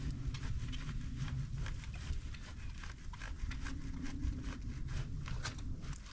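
Fiskars pole saw cutting into the trunk of a dead pine, a run of quick scraping, crackling strokes over a low steady rumble.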